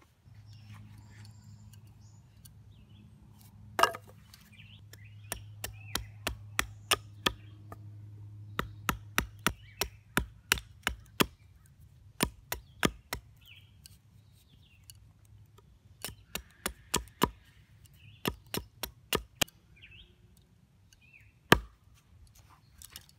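Hatchet chopping the end of a wooden stick, sharpening it to a point: runs of sharp chopping strikes about two a second, with pauses between, and a single louder blow near the end.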